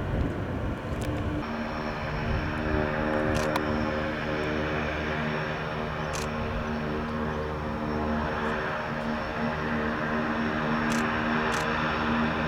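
Pilatus PC-6 Turbo-Porter's turboprop engine and propeller running with a steady, even hum, the tone shifting about a second and a half in.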